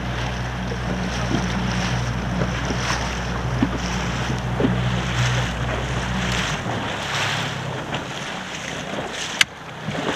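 Outboard motor of an inflatable boat running steadily at low speed, with wind on the microphone and choppy water splashing. The engine stops about two-thirds of the way through, leaving wind and water, and there is a single sharp click near the end.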